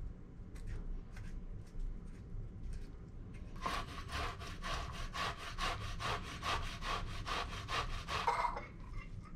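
A boiled beet is rubbed back and forth on a stainless steel box grater in quick, even strokes, about four a second. The grating starts about three and a half seconds in and lasts about five seconds, with a few faint scrapes before it.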